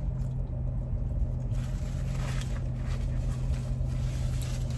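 Steady low hum of an idling car engine.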